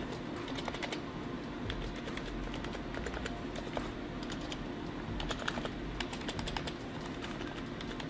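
Rapid typing on a Razer Huntsman V2's linear red optical switches with PBT keycaps, a quick, even stream of soft key clicks. The keys are damped by sound-dampening foam and are practically silent, with no loud clacking.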